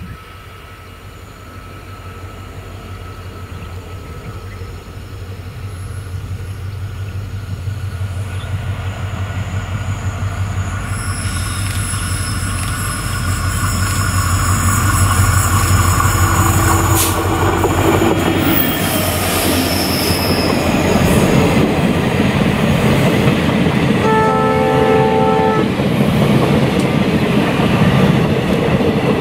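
Indian Railways diesel locomotive hauling a passenger train, approaching and then passing close by: its engine drone grows steadily louder. Near the end it gives one horn blast of about a second and a half, while the coaches rumble and clatter past on the rails.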